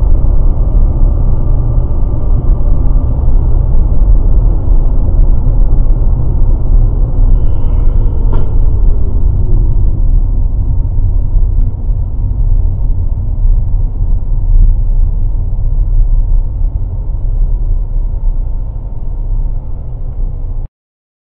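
Loud, steady low rumble of a car driving, heard from a dashcam inside the cabin: engine and tyre noise. There is a single short click about eight seconds in, and the sound cuts off suddenly near the end.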